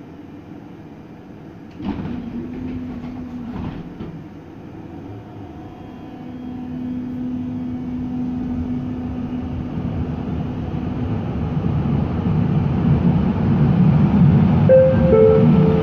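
A TW6000 Stadtbahn light-rail car pulls away from a station with a sudden clunk about two seconds in. It then runs through the tunnel, its rumble and hum growing steadily louder as it gathers speed. Near the end a two-note chime sounds, falling in pitch, ahead of the next-stop announcement.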